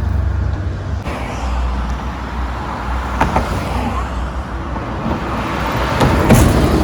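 Road traffic going by: a steady low engine rumble with tyre and road noise that swells as vehicles pass, and a few short clicks.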